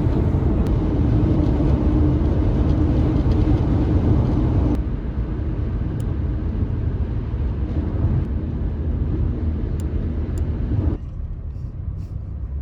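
Car driving, a steady rumble of road and engine noise, which changes abruptly twice, about five seconds in and again about eleven seconds in.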